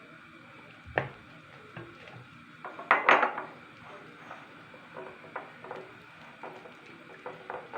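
A utensil knocking and scraping against a cooking pot while the molokhia stew is stirred. There is a single knock about a second in, a louder clatter about three seconds in, then lighter scattered taps.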